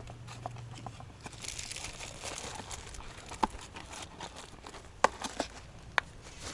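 Hands handling oil filter parts: rustling and crinkling, with a few sharp clicks and taps, the loudest about five and six seconds in.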